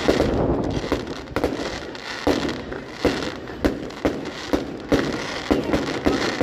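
Fireworks going off in a rapid run of bangs, about one every half second, over continuous crackling.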